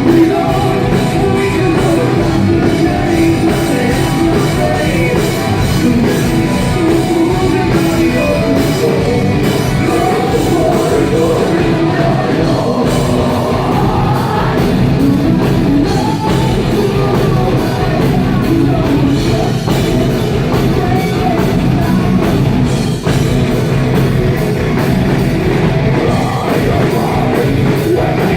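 Live metal band playing loudly, with vocals and fast drumming, recorded on a phone that distorts and muddies the sound.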